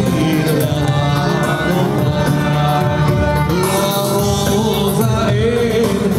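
Music with singing in a Middle Eastern style, loud and continuous, with a wavering melodic voice line.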